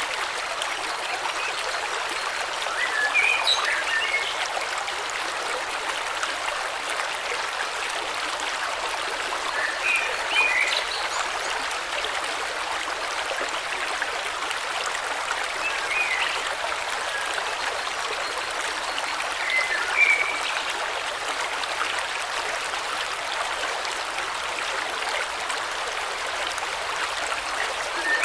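Steady rush of a flowing river or stream, with a few short bird chirps breaking through now and then.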